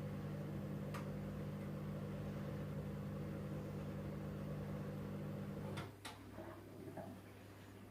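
Steady low mechanical hum from a running appliance motor, with a light click about a second in. The hum cuts off abruptly about six seconds in, followed by a few light clicks.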